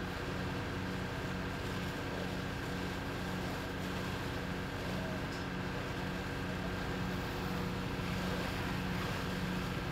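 A fire engine's engine running steadily to drive its pump, a constant low drone over an even hiss.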